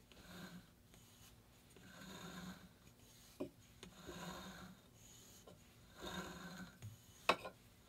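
Combed wool being drawn off the tines of a clamped wool comb through a wooden diz: soft rubbing swishes about every two seconds, one for each pull. A couple of light clicks fall between them, the sharper one near the end.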